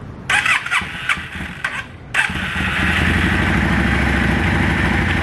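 2002 Yamaha V Star 650 Classic's air-cooled V-twin being cold-started on choke: a couple of seconds of uneven cranking bursts, then the engine catches about two seconds in and settles into a steady idle.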